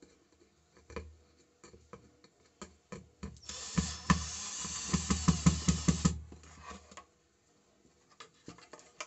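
IZOM 12-volt cordless drill driving a screw into a wooden board. It runs for about two and a half seconds, starting a few seconds in, with a fast knocking underneath. Light handling clicks come before it.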